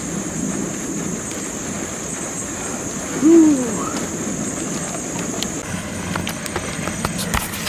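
A single short hoot about three seconds in, rising then falling in pitch, over steady outdoor background noise with a high steady hiss that stops a little past halfway. Near the end come clicks and knocks of hands handling the camera.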